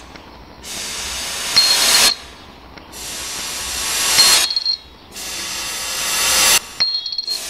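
A one-euro coin dropped into a pewter beaker three times, each drop a short high metallic clink followed by a brief rattle as the coin settles. A hiss swells up again and again and cuts off abruptly, once before each clink.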